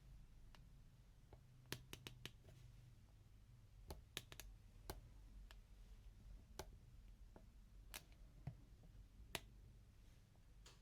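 Faint, sparse sharp clicks and taps from handling plastic toys, irregularly spaced with a few in quick clusters, over a low steady hum.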